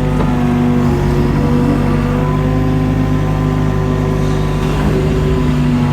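Mini excavator's engine running steadily.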